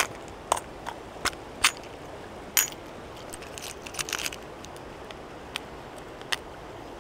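Steady rush of a mountain stream, with a dozen or so sharp irregular clicks and light rattles over it, a small cluster about four seconds in.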